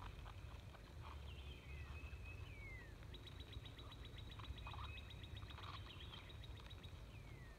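Faint bird calls: a few falling whistles and, from about three seconds in, a rapid dry trill of about ten notes a second lasting some three and a half seconds, over a low steady rumble.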